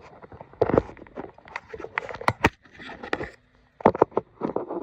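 Handling noises: a run of irregular clicks, knocks and scraping, loudest in short clusters around the middle and near the end.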